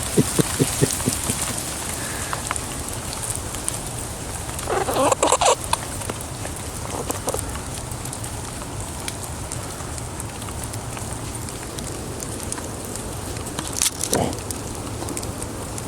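Rain pattering steadily, with a squirrel squeaking in short bursts: a quick run of ticks at the start, a cluster about five seconds in, and one more brief squeak near the end.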